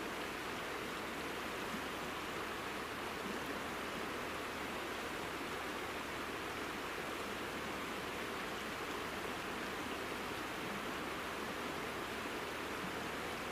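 Steady, even rush of flowing water from a mountain river.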